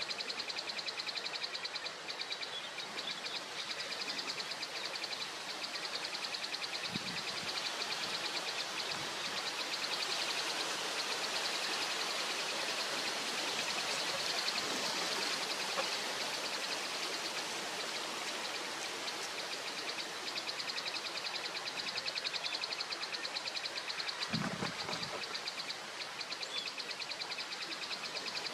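Steady outdoor hiss with a fast, evenly pulsing high-pitched insect trill running over it, and a couple of brief low bumps.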